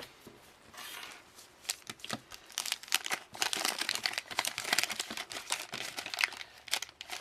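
Wax-paper wrapper of a 1988 Topps football card pack being torn open and crinkled, a dense run of crackles starting about a second in.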